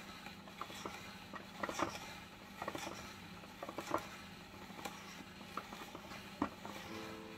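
White plastic hand-crank vegetable spiralizer shaving a carrot into spiral strands: irregular crisp crunches and clicks as the blade cuts into the carrot.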